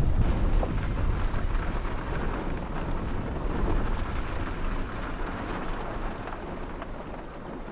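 Car driving slowly across a grass field: a low rumble of engine and tyres mixed with wind on the microphone, growing gradually quieter as the car slows.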